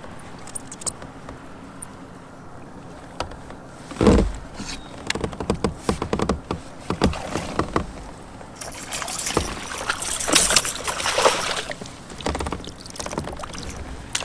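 Knocks and clatter of gear on a fishing kayak, the loudest a thump about four seconds in, followed by a few seconds of water splashing and sloshing around the boat.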